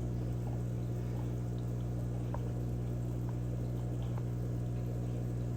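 Aquarium equipment running: a steady low hum with faint water trickling, and a couple of tiny ticks.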